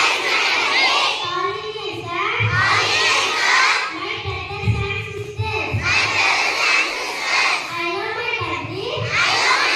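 A large group of children calling out together in unison: four loud shouted phrases in a row, each a second or two long.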